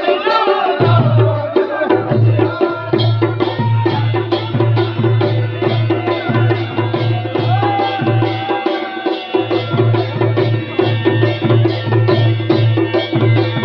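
Folk wedding band: dhol drums beaten in a fast, steady rhythm, with a man singing into a microphone over them.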